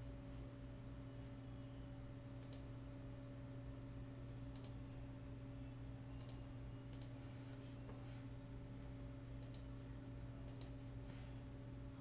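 Faint steady low hum with several short, sharp clicks scattered through it.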